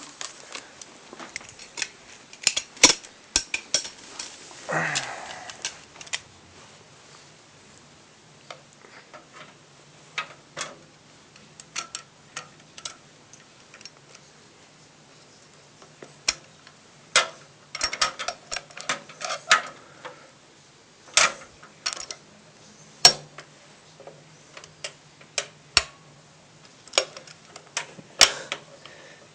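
Irregular clicks and light knocks of parts being fitted into a tool-less PC case while a power supply is installed, with a faint steady low hum underneath from about six seconds in.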